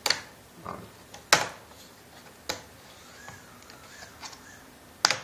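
Plastic screen bezel of a Dell Latitude E6520 laptop being pried off, its clips releasing in a few sharp clicks, the loudest about a second and a half in.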